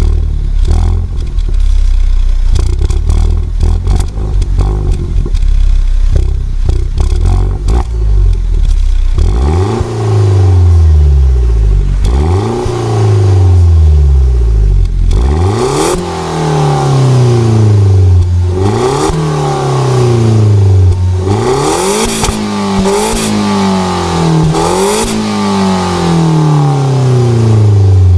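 Citroen DS3's 1.6 THP turbocharged four-cylinder petrol engine through a Milltek non-resonated cat-back exhaust. It holds a steady low note at first, then from about a third of the way in is revved again and again, each rev shooting up and falling back.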